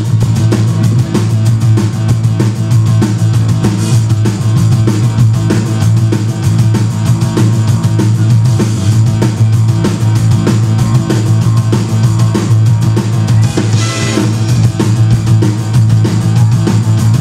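Rock band playing loud live: drum kit with a steady beat and cymbal crashes, electric bass and guitar, the bass heavy throughout.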